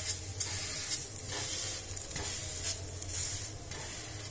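Stuffed paratha sizzling in oil on a hot tawa over a high flame, with a slotted metal spatula pressing and scraping over it several times.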